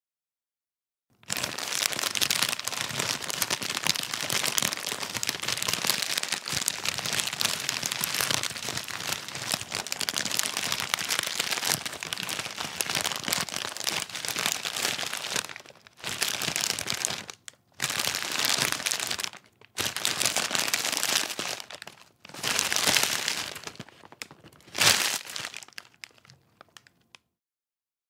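A bag of chips being crushed: the bag crinkles and the chips inside crunch in a dense crackle for about fifteen seconds, then comes in several separate squeezes with short pauses. The loudest is a sharp crunch near the end.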